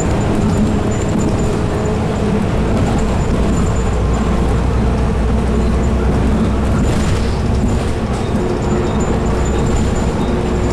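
Interior noise of a Volvo B9TL double-decker bus: the six-cylinder diesel engine running with a steady drone and hum, together with cabin and road noise.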